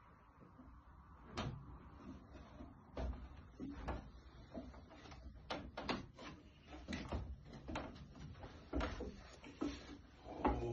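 Footsteps going down a steep wooden staircase: about a dozen irregular knocks of shoes on the wooden treads.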